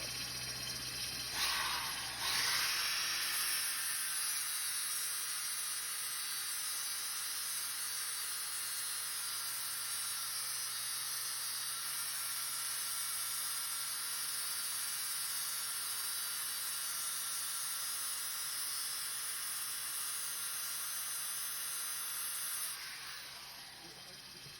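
Angle grinder's abrasive disc grinding across the face of a spinning brake rotor, resurfacing light scoring on the rotor. A steady, hissing grind sets in about two seconds in and stops near the end.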